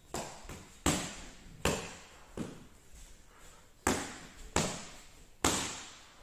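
Boxing gloves smacking into handheld focus mitts: seven sharp punches in two quick combinations, four and then three, each slap followed by a short echo.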